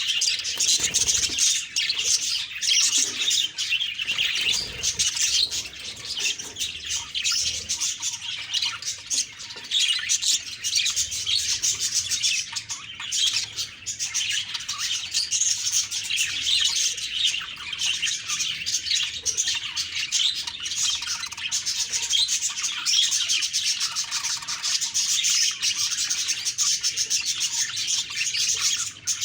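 Budgerigars chirping and warbling continuously, a dense, busy chatter of many quick high notes with no pause.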